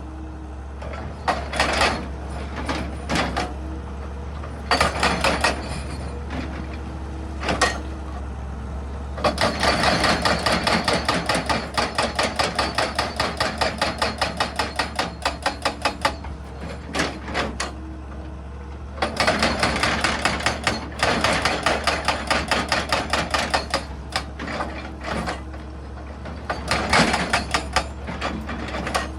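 Excavator-mounted hydraulic rock breaker hammering on stone in rapid, evenly spaced blows, several a second, in two long runs and a few short bursts, over the engine's steady low hum.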